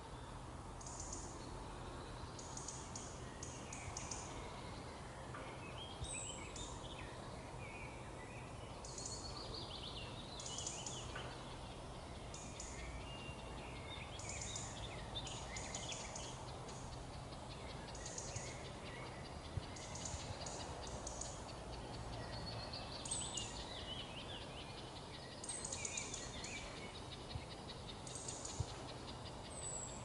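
Forest ambience: several songbirds singing and calling, short high chirping phrases overlapping throughout, over a steady low background noise.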